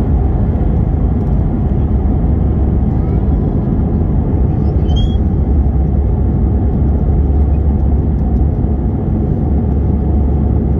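Steady, loud cabin roar of an Airbus A319-111 climbing out after takeoff: its CFM56-5B turbofan engines at climb thrust together with the rush of air past the fuselage, heard inside the cabin with most of its weight in a deep low rumble.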